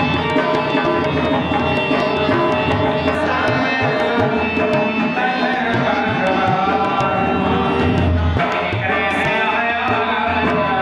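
Indian devotional kirtan music: tabla playing a quick, steady rhythm under held melodic tones.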